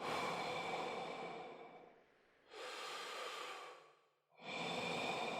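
Heavy breathing close to the microphone: three long, noisy breaths, the middle one quieter.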